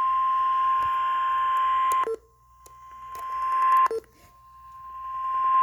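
NOAA Weather Radio warning alarm, the single steady 1050 Hz attention tone that comes before a severe thunderstorm warning is read. It sounds with hiss around it, drops away sharply about two seconds in and again near four seconds, and swells back up each time.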